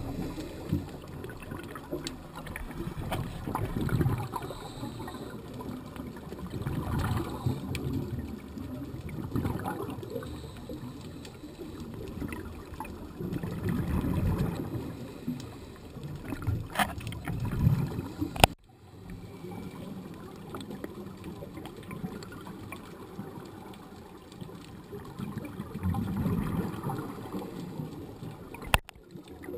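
Scuba divers' exhaled regulator bubbles heard underwater: low bubbling surges every three or four seconds over a steady watery murmur. Two sharp clicks come about two-thirds of the way through and near the end.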